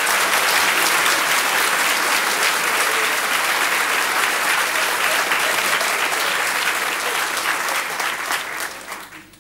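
Studio audience applauding and laughing, the clapping fading away near the end.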